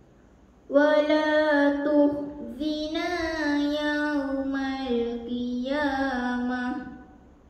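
A girl reciting the Quran in melodic tilawah style: long held, ornamented vocal notes in a few phrases. It starts under a second in and ends shortly before the end.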